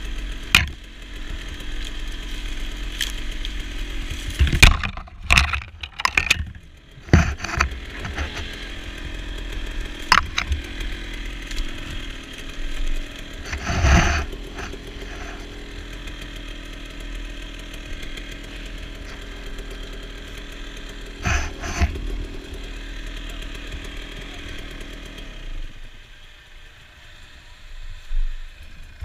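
Dirt bike engine running steadily while riding over rough ground, with several sharp knocks and clatters from bumps. The engine sound falls away near the end.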